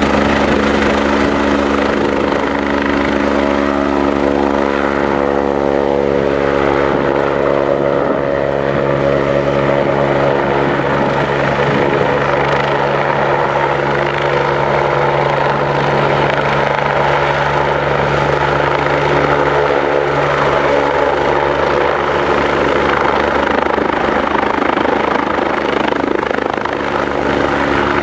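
Police helicopter's turbine engine and rotor running steadily and loud, a constant drone of several pitches over a rushing noise.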